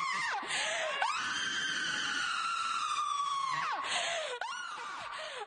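A person screaming: a long, high held scream that falls away, a harsh gasp, then a second long scream that falls off in turn, and a shorter falling cry near the end.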